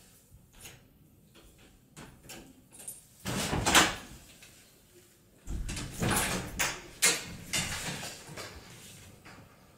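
Keys rattling and clicking in a wooden door's lock, with a louder rattle a few seconds in, then the door being unlocked and opened with a string of sharp knocks and rattles.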